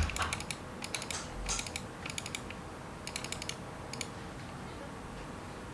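Typing on a FEKER IK75 Pro mechanical keyboard with Akko Jelly Black linear switches: short runs of clicky keystrokes in quick bursts, stopping about four seconds in.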